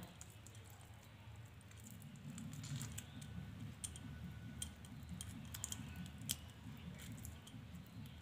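Fingers stuffing a mashed potato and pea filling into a hollowed tomato: faint, scattered small clicks and soft squelches of the filling being pressed in, over a low steady hum.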